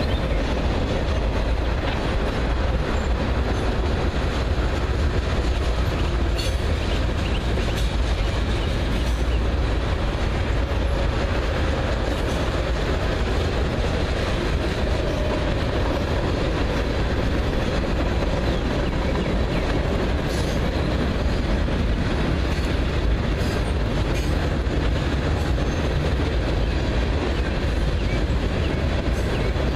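Freight cars of a long mixed train rolling steadily past over a bridge: a constant heavy rumble of steel wheels on rail, with a few sharper clicks now and then.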